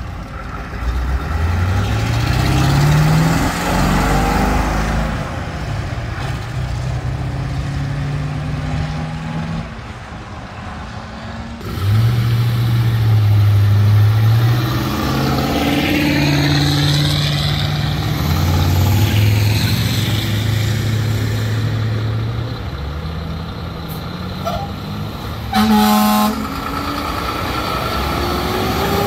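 Trucks and cars driving past one after another, their engines pulling away with pitch that rises and steps up through the gears. A short horn blast comes near the end.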